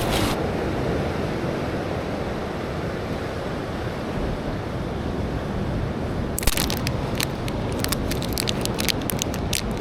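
Steady wash of heavy surf and wind on the microphone. From about six and a half seconds in, a run of short sharp clicks and taps sounds over it.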